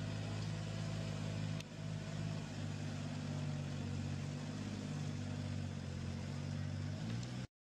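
Kubota tractor's diesel engine running steadily, with a brief dip about one and a half seconds in; the sound cuts off abruptly near the end.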